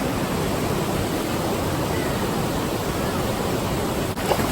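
Steady rushing roar of a waterfall's falling water, an even noise with no breaks.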